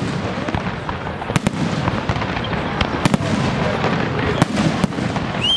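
Aerial firework shells bursting in an irregular series of sharp bangs, several a second at times, over a steady background hiss of the display. A short rising whistle sounds near the end.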